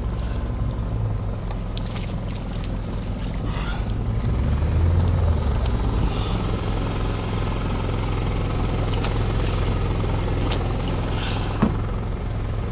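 Steady low engine drone from an electrofishing boat: the portable generator that powers the shocking booms, together with the boat's outboard motor.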